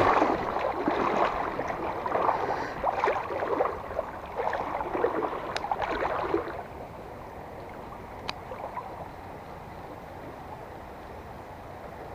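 Shallow river water splashing and sloshing around someone wading for about the first six and a half seconds, then settling to a steadier, quieter rush of the current. There are a couple of brief clicks along the way.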